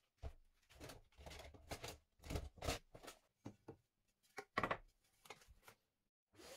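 Handling noises: a series of irregular short knocks, scrapes and rustles. A brief pause follows, and near the end a steady machine hiss starts.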